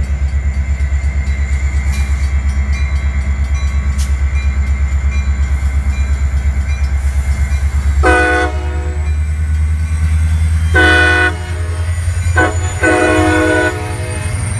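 Metra commuter train's diesel locomotive rumbling steadily as the train runs past, then its air horn sounds the grade-crossing signal starting about eight seconds in: two longer blasts, a short one, and a final longer one.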